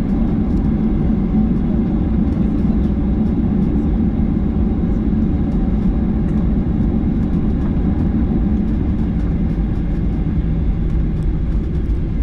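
Steady low rumble of jet aircraft noise, even throughout, with faint light ticks above it.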